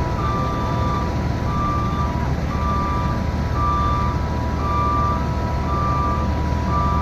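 Skid steer backing up: its engine runs steadily under the reversing alarm, which beeps about once a second.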